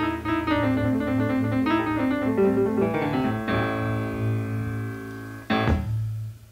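The closing bars of an electric blues song: notes stepping downward into a long held chord, then one last struck chord about five and a half seconds in, after which the music stops.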